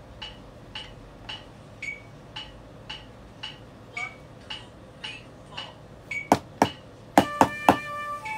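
Evenly spaced metronome-like clicks, a little under two a second, played back from a phone. Near the end come about five loud, sharp hits, and the first sustained notes of the backing music begin.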